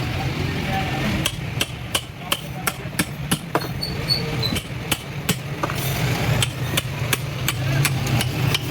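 Repeated hammer strikes in a quick, even rhythm of about three a second, over a steady low hum.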